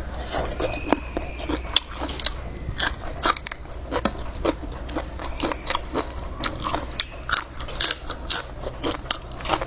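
Close-up eating sounds: irregular crunching, chewing and mouth clicks, several a second, as people eat spicy seafood som tam (papaya salad).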